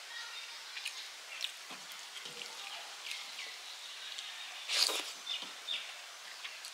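Fingers kneading rice and curry on a metal plate, and eating: a run of small wet clicks and squelches, with one louder smacking sound about five seconds in.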